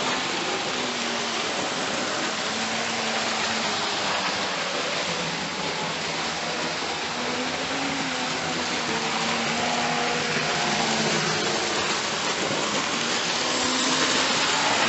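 Model railway Black Five steam locomotive running on track: a steady whir from its small electric motor and wheels on the rails, with a faint wavering whine in it, growing a little louder near the end as the locomotive comes close.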